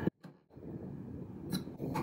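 Hands and small tools working on a small wooden jewellery box: faint handling noise, with a sharp click about one and a half seconds in and louder knocks near the end.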